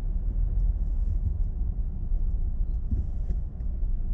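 Steady low rumble of a car in motion heard from inside the cabin, with a few faint clicks.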